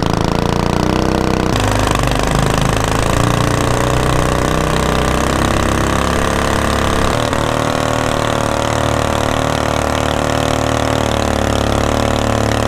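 Long-tail mud motor powered by a 212cc Predator single-cylinder engine, running steadily at speed on a jon boat, with the rush of water from the wake. The engine note changes about two seconds in and again about seven seconds in.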